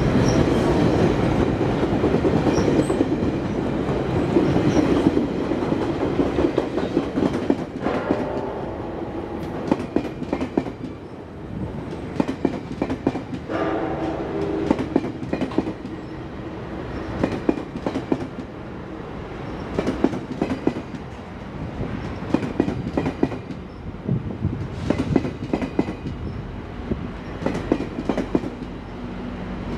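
GO Transit commuter train running past: a dense, steady rumble at first, then wheels clicking over rail joints in repeated clusters as the cars go by, with a brief tonal sound about halfway through.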